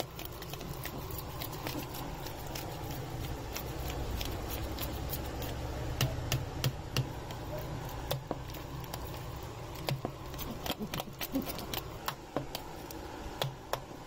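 A spoon scraping and clicking against a plastic bowl as a thick garlic-mayonnaise spread is stirred, in irregular short clicks over a steady low hum.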